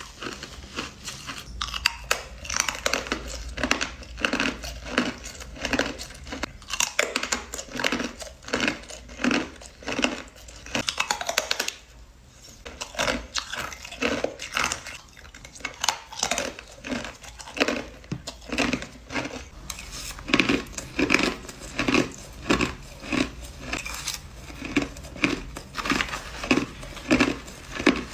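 A person biting and chewing hard crushed ice: a steady run of crunches at about two a second, with a short pause about twelve seconds in.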